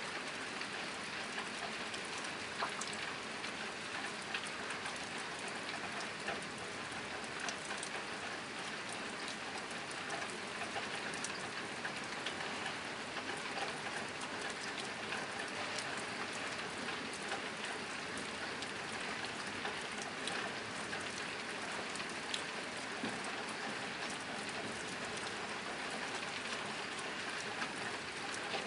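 Steady rain drumming on a nearby tin roof: a dense, even patter with many individual drops ticking sharply on the metal.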